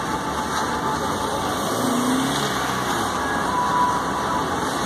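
Steady engine and road noise of a tourist road train driving along a street, heard from inside one of its open-sided carriages.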